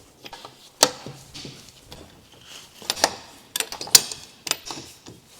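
Irregular metallic clicks and knocks of a socket wrench on a car's wheel bolts as they are slackened. The bolts turn easily because they were already loose.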